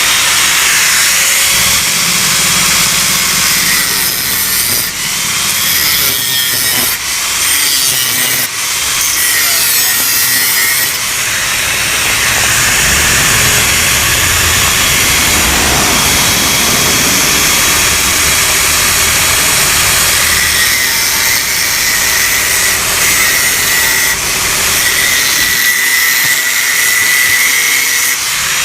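Angle grinder cutting into the steel body of a Yamaha RX-King exhaust to open it up, a continuous harsh grinding with a whining tone. The sound dips briefly a few times in the first ten seconds.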